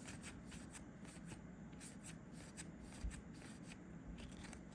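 Trading cards from freshly opened booster packs being flicked and slid through the hands, a faint run of soft card clicks. There is a soft bump about three seconds in.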